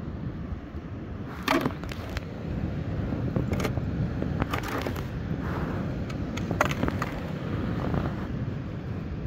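Steady low rumble of wind on the microphone and surf, with a handful of sharp clicks and rustles from hands handling a fishing hook and sardine bait.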